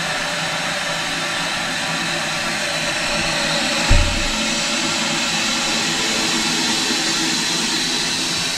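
Water hissing steadily through a Caroma toilet's ballcock (float) inlet valve as the cistern refills, the valve now fitted with a new washer. A short low thump about four seconds in.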